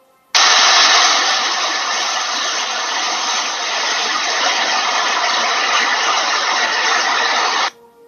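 A loud, steady rushing noise that starts abruptly just after the beginning and cuts off abruptly near the end.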